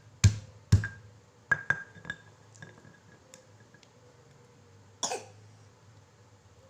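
Pestle pounding spices in a mortar: three hard knocks with a short ring about half a second apart, then lighter knocks and taps. A single short, harsher burst comes about five seconds in.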